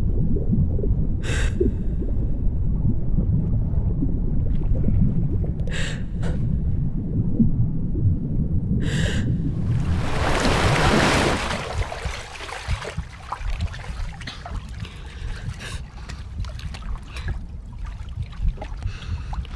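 A swimmer doing front crawl in a pool: a low churning of water broken by three sharp gasped breaths. About ten seconds in there is a burst of splashing as she reaches the wall, and after it the water settles to quieter lapping and trickling.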